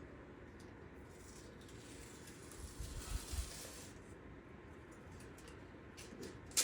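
Painter's tape being pulled off the roll and pressed onto a plastic bag: a faint hissing peel of tape lasting about three seconds, with a few soft thumps partway through and a sharp click near the end.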